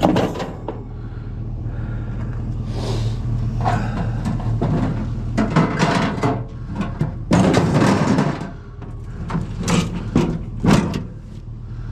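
A heavy piece of scrap being shifted and loaded by hand: a series of scrapes, knocks and clanks, loudest about two-thirds of the way in and again near the end. A steady engine hum from a running vehicle underlies it.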